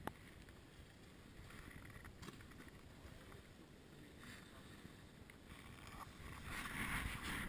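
Snowboard sliding over packed piste snow: a faint scraping hiss that swells louder from about six seconds in as the board picks up speed. A short click right at the start.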